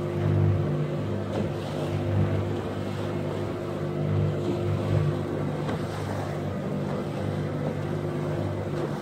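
Small motorboat's engine running steadily, a low hum that swells and eases slightly every second or two, over the rush of water against the hull.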